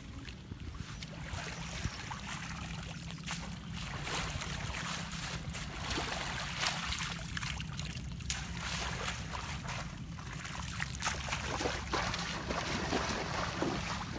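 Shallow muddy water splashing and sloshing as a woven bamboo fishing basket (chhneang) is scooped through it and lifted, water pouring back out through the weave, with wind rumbling on the microphone.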